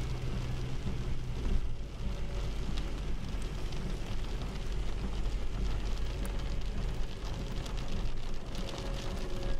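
Rain hitting the windshield and roof of a moving car, with many sharp drop hits over a steady low road and engine rumble.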